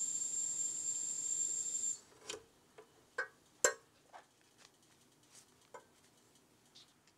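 Steady hiss of a gas burner under a saucepan of heating cream, cutting off suddenly about two seconds in as the heat is turned off. Then a scatter of small clicks and taps, one sharper knock just after halfway.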